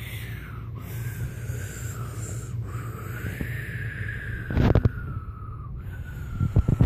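A person imitating a jet engine with their mouth: a high, wavering whine that breaks off every second or two for breath. There are a few loud knocks in the middle and a cluster of them near the end.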